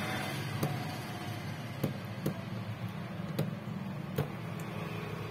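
Metal tweezers picking and scraping at a phone's frame to clear old display glue, making about five small sharp clicks, over a steady low background rumble.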